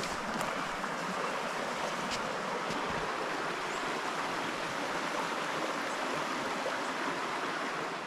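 Small rocky river flowing: a steady rush of running water.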